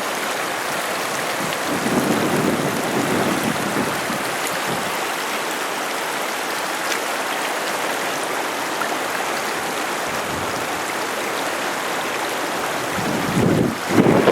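Steady rushing noise of typhoon downpour and flooding river water. Near the end, gusts of wind buffet the microphone.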